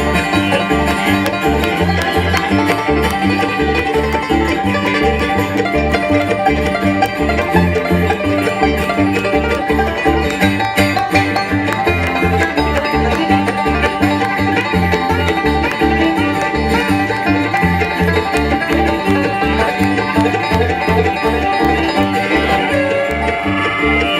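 Bluegrass band playing an instrumental passage, banjo to the fore over a steady beat.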